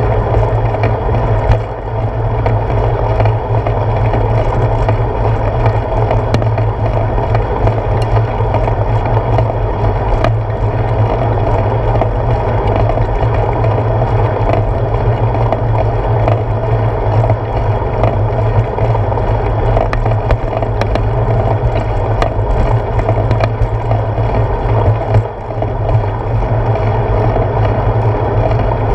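Bicycle rolling along a paved road, picked up by a handlebar-mounted GoPro Hero 4: a loud, steady rumble of tyres and road vibration through the handlebars, with a few small clicks and rattles.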